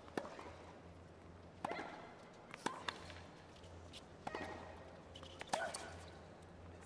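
Tennis rally on a hard court: tennis balls struck by rackets and bouncing in a series of sharp pops, roughly every second to second and a half, with short shoe squeaks between shots.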